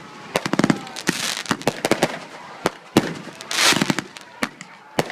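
Consumer fireworks going off: a quick series of sharp pops and bangs with crackling, and a hissing burst about three and a half seconds in.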